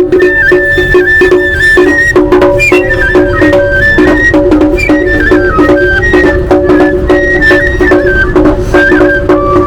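Music from a passing group of marching musicians: a high piping melody that steps up and down over a steady held drone, with regular drum beats.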